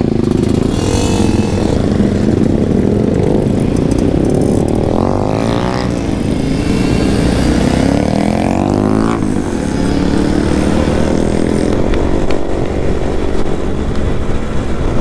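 Suzuki Max 100 two-stroke single-cylinder motorcycle running on the move, with other motorcycles close around it. The engine note rises and falls as it accelerates, most clearly between about five and nine seconds in.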